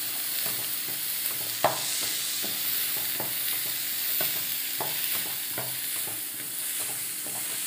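Yardlong beans (achinga) stir-frying in coconut oil in a nonstick pan on a low flame: a steady gentle sizzle, with the spatula scraping and tapping the pan about every half-second and one sharper knock about one and a half seconds in.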